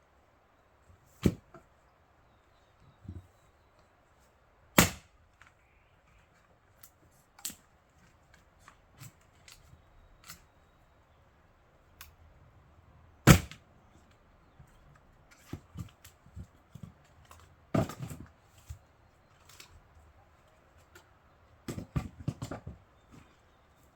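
Fiskars X27 splitting axe striking pine firewood rounds: a handful of sharp cracks several seconds apart, with smaller knocks and clatters of split wood in between.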